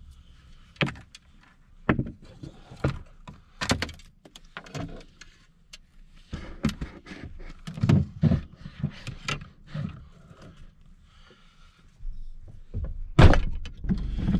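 Knocks, clunks and light rattles of fishing rods and gear being loaded through a car's open rear door. Near the end a car's engine is running with a steady low hum, and one loud knock sounds about a second after it comes in.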